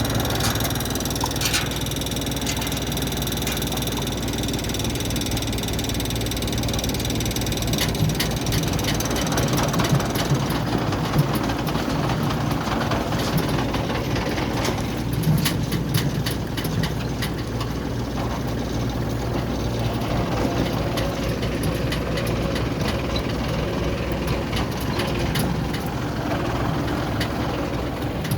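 Yanmar combine harvester running steadily with a low engine hum. A high whine fades away about ten seconds in, and frequent clicks and rattles from the machinery sound through the second half.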